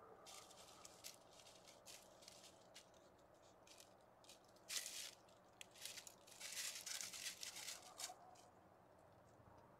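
Faint crunching rustle of dry leaf litter in short irregular bursts, loudest about five seconds in and again from six to eight seconds: a cat's footsteps as it walks up to the camera.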